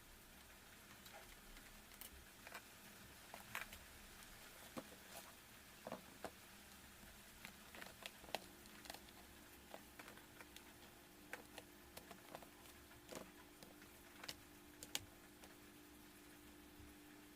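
Faint, irregular small clicks and taps of a laptop being handled and worked on, spread unevenly through the quiet. A faint steady hum comes in about eight seconds in.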